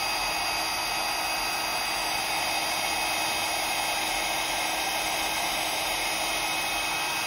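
Electric craft heat gun running steadily, a constant rush of blown air with a faint steady whine, aimed at a card to heat and set mica-dusted stencil paste.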